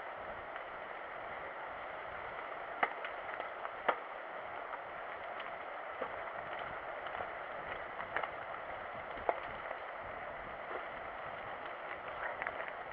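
Mountain bike riding along a wet dirt trail: a steady hiss of rolling noise, broken by a few sharp, irregular clicks and knocks from the bike over rough ground.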